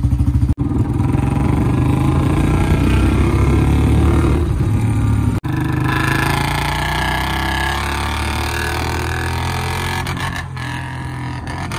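Royal Enfield Classic 350 single-cylinder engine breathing through a C-bend pipe and long Punjab silencer, throttled hard while riding. It rises in pitch over the first few seconds, then runs steadily at speed. There are two brief breaks in the sound, about half a second and five seconds in.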